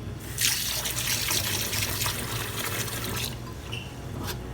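Tap water running into a bowl of rice as the rice is washed, starting just after the beginning and stopping about three seconds in.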